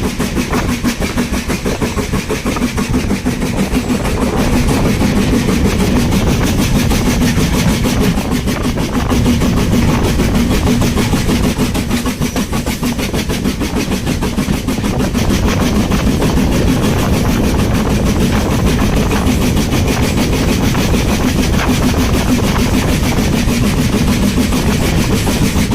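BR Standard Class 4 4-6-0 steam locomotive working hard under way, with a loud, continuous run of rapid exhaust beats.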